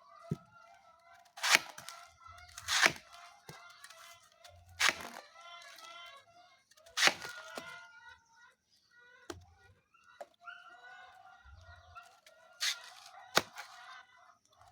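Banana stems being chopped by hand with a blade: sharp chops, about seven of them at uneven intervals of a second or two, with chickens clucking in the background.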